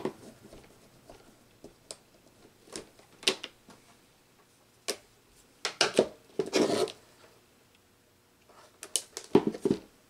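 Hand tools and wire being handled while a wire is fitted into a DIN-rail terminal block: scattered clicks, taps and short scrapes, with a longer rustling scrape about six seconds in.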